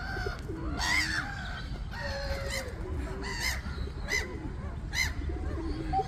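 Park waterbirds calling: a string of short calls, roughly one a second, from the birds the walker calls "so noisy".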